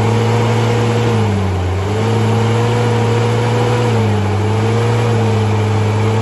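A 4x4's engine running hard at steady revs under load while crawling up a steep mud slope; its pitch sags about a second and a half in and again near four seconds, then picks back up.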